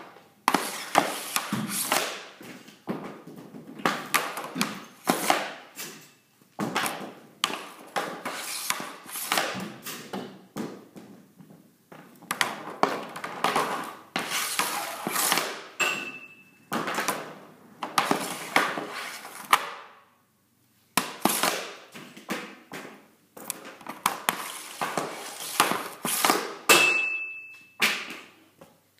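Hockey snap shots off a shooting board: the Easton Synergy EQ50 composite stick's blade slaps the board and pucks, and pucks clatter into the net and across the concrete floor, shot after shot with a few short pauses. Twice a short metallic ping rings out, a puck striking the goal's metal frame.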